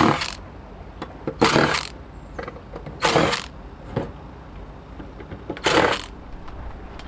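Ryobi cordless driver running in four short bursts of about half a second each, backing screws out of a sheet-steel power-supply case.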